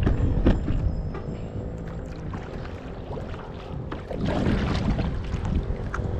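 Double-bladed paddle strokes dipping and pulling through the water beside a wooden kayak, with water splashing and slapping at the hull, the strokes louder from about four seconds in. Wind rumbles on the microphone throughout.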